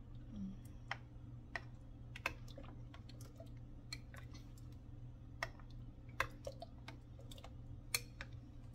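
Plastic rice paddle stirring thick chocolate rice porridge in a glass pot, tapping and scraping against the glass in irregular light clicks, a few of them sharper, over a low steady hum.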